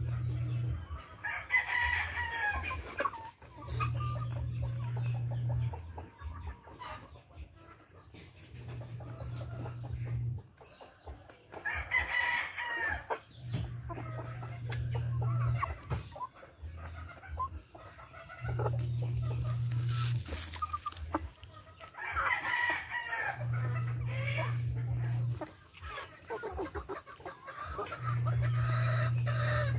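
Heritage chickens clucking while they feed, with a rooster crowing three times, about ten seconds apart. A low hum switches on and off every five seconds or so.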